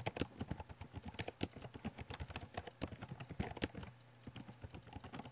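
Computer keyboard typing: a quick, uneven run of keystrokes that thins out about four seconds in.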